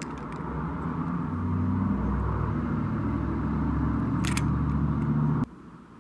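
A steady low mechanical rumble with a hum in it, like an engine running, swells over the first couple of seconds and cuts off abruptly about five and a half seconds in. A faint sharp click of metal comes about four seconds in.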